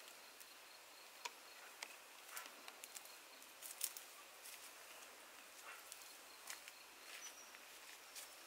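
Quiet rural ambience: a faint steady insect hum, with scattered light rustles and clicks, the loudest about four seconds in.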